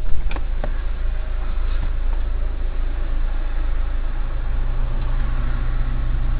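Blast of a distant chemical plant explosion reaching a stationary car: a few sharp bangs and cracks in the first second, the first one loud. Then the car's engine idles with a steady low hum inside the cabin.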